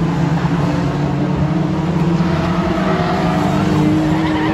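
Engines of several small hatchback Junior Production race cars running hard as the pack laps an oval short track, with one engine note climbing slightly in the last second or so.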